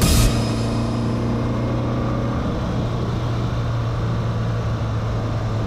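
Subaru Forester driving at speed, heard from inside the cabin: a steady low drone of engine and tyres. Music cuts off just after the start.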